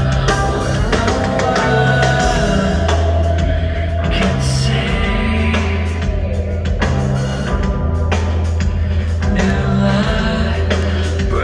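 Amplified rock band playing, with drums, sustained bass notes and singing.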